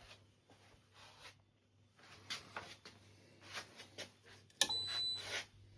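Light clicks and knocks of handling. About four and a half seconds in there is a sharp click, followed by a short, steady, high electronic beep as the resin wash station is set up to run.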